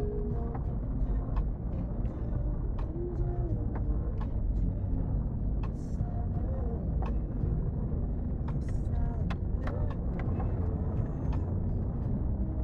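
A four-wheel drive's engine running steadily as it crawls along a wet, muddy track, heard from inside the cabin, with scattered sharp clicks and knocks throughout.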